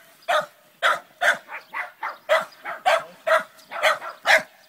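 A small dog barking over and over in quick succession, about three short barks a second.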